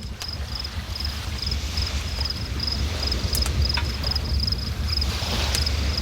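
River water running, a steady deep rumble with a hiss on top, while an insect chirps in short high pulses about twice a second.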